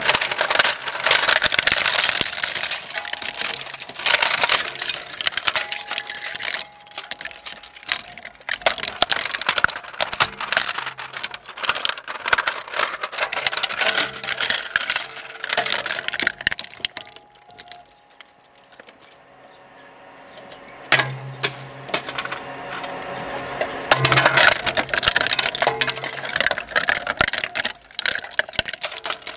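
Twin-shaft shredder's steel cutter discs crushing a hard plastic toy truck: dense crunching, cracking and snapping of plastic. A lull a little past halfway, broken by one sharp crack, then loud crunching again near the end.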